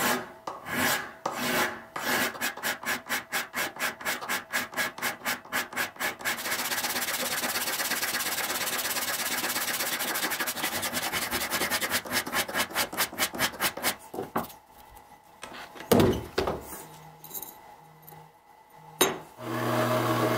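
Hand file rasping across the bevel of a small 52100 steel knife blade held in a vise: slow strokes about one a second, quickening to about three a second and then to a nearly continuous rasp that stops about 14 seconds in. A couple of sharp knocks follow, and near the end a drill starts with a steady hum as its bit bores into the steel.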